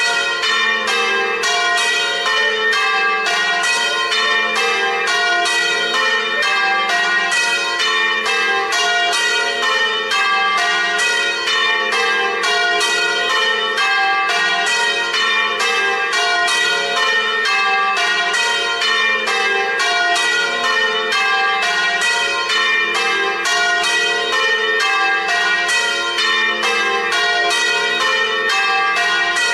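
Several swinging church-tower bells of different pitches ringing together in a full festive peal, an unbroken, even run of strokes: the call to Sunday mass.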